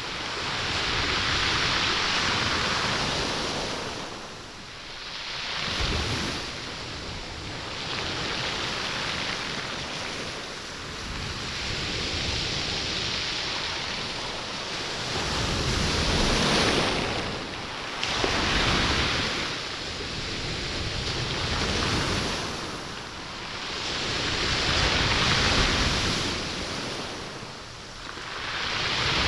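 Sea waves surging up a stone beach and drawing back, the pebbles rolling and rattling in the wash, swelling and fading about every four to six seconds. Recorded with a binaural microphone.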